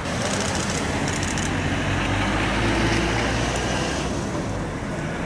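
Road traffic noise over a steady low engine hum, with a vehicle passing, loudest about three seconds in.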